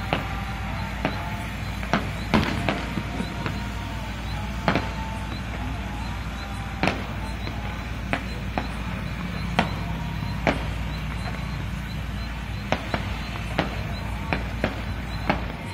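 Fireworks going off: a string of sharp bangs and cracks at uneven intervals, from aerial shells bursting.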